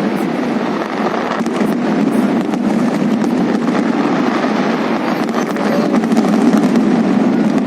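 Fireworks display: a continuous barrage of bangs with many sharp crackling pops.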